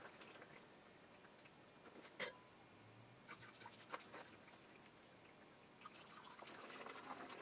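Faint pouring of used manganese phosphate (parkerizing) solution from a stainless pot through a plastic funnel into a plastic jug, trickling and dripping. A light clink comes about two seconds in, with a few softer clicks after it.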